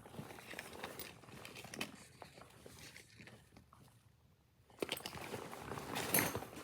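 Handling noise from a heavily packed backpack: fabric rustling with light clicks and knocks, loudest from about five seconds in.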